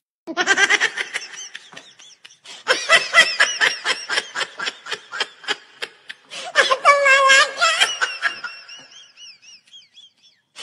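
A person laughing in high-pitched giggles, in several long fits with short breaks, trailing off into faint squeaky laughs near the end.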